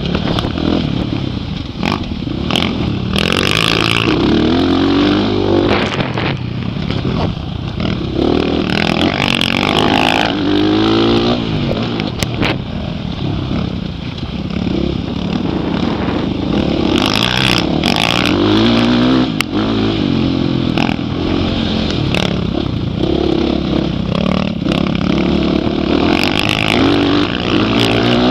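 Dirt bike engine revving up and falling back over and over as it works through the gears on a motocross track, heard from a helmet-mounted camera.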